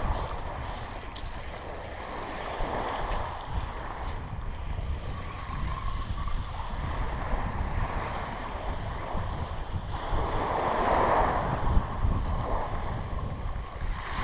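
Wind buffeting the microphone over small waves breaking and washing up a shingle beach, with a louder wash about ten seconds in.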